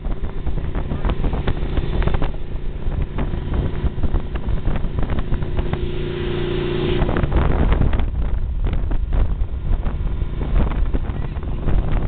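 Motorcycle engine running at road speed, with wind buffeting the microphone and frequent short knocks from the handheld camera.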